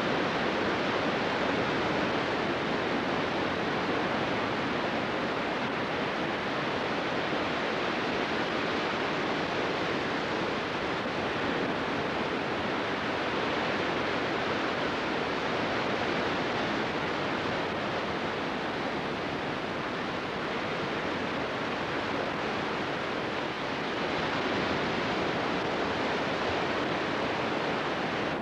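A steady, even rushing noise with no rhythm or swell, cutting off suddenly at the end.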